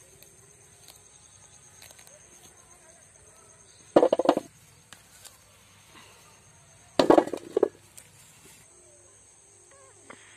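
Steady high-pitched insect drone, like crickets or cicadas, in a rural garden. Two loud harsh bursts cut across it, about four and seven seconds in, the second broken into several pieces.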